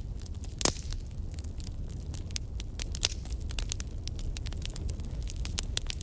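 Wood fire burning in a fireplace: logs crackling with frequent small pops over a low, steady rumble of the flames. There is a louder pop under a second in.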